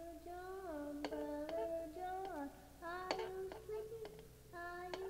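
A child singing a wordless tune in short phrases, the notes sliding up at their starts, with sharp clicks scattered among the notes.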